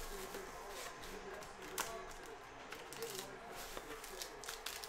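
Quiet handling of a shrink-wrapped 2021 Panini Origins Football box: light rustling of cardboard and wrapper, with one sharp click about two seconds in.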